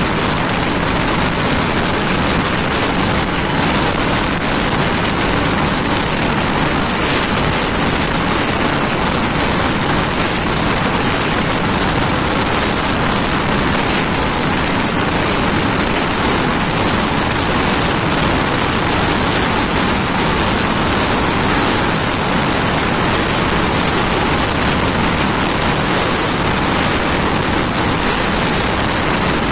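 Honda Bros single-cylinder motorcycle ridden at about 120 to 140 km/h: a loud, steady rush of wind and road noise over the engine running hard, with no let-up.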